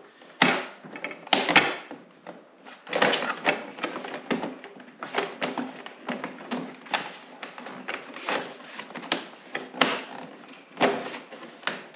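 Hard plastic dash centre piece of a snowmobile being pried and wiggled loose by hand: an irregular string of clicks and knocks as the plastic rattles and its tabs give, the sharpest about half a second and a second and a half in.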